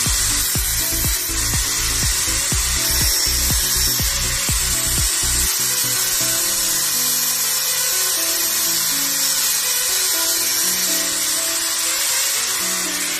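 Handheld angle grinder grinding metal: a steady high-pitched whine and hiss. Over it, background music with a beat of low thumps for about the first five seconds, then a melodic bass line.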